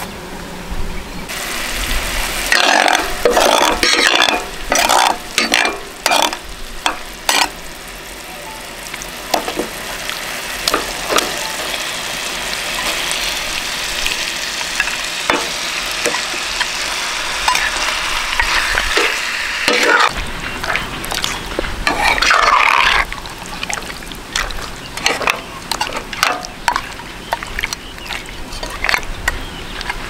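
Pork spare ribs in satay sauce sizzling in a hot pan while a spatula stirs them. There is a steady sizzle that starts about a second in, with repeated short scrapes of the spatula against the pan in bursts.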